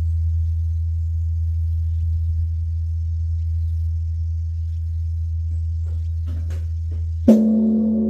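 Korean Buddhist temple bell (beomjong): a deep, steady hum lingers, then the bell is struck again about seven seconds in and rings out in several tones.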